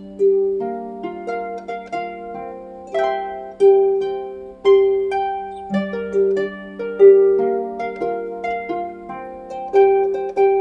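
Background instrumental music: a melody of plucked string notes, each struck and fading, over lower sustained notes.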